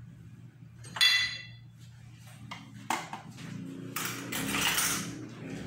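Tableware being handled: a clear clink of a spoon or glass that rings briefly about a second in, then a few light knocks and a rustle of handling.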